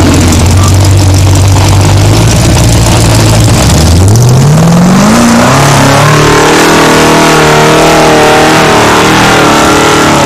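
Formula Offroad buggy's engine held at a steady low pitch at the start line, then revving up about four seconds in as the car launches. It runs on at high revs with a wavering pitch under full load as the paddle tyres claw up the steep sand slope.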